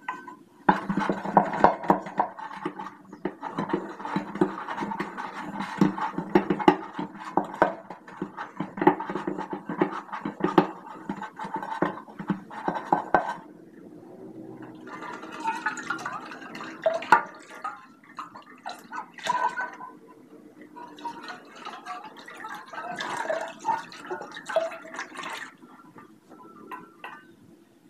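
Steel saucepan being scrubbed by hand with a scouring pad to get off stubborn stains. The fast scratchy strokes are dense for the first half, stop briefly about halfway, then come back in shorter spells.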